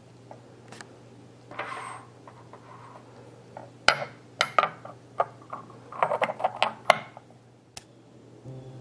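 Ceramic tea things clinking and tapping as they are handled: a short scrape about one and a half seconds in, then a run of sharp clinks between about four and seven seconds.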